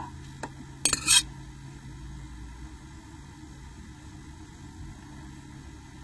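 Crochet hook and yarn being handled: a faint tick, then a brief sharp scrape-like clink with two quick peaks about a second in, over a faint steady hum.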